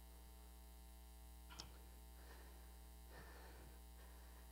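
Near silence with a steady electrical mains hum, and one faint click about a second and a half in.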